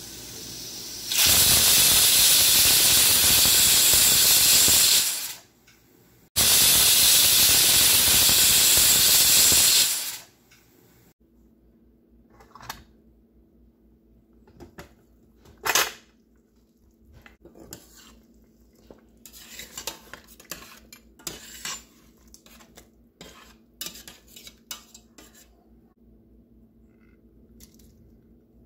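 Stove-top pressure cooker letting off steam through its valve: two loud hissing bursts of about four seconds each, the 'steams' that count its cooking time. Then scattered metal clicks and clinks as the steel lid is unlocked and lifted and a ladle knocks against the pot.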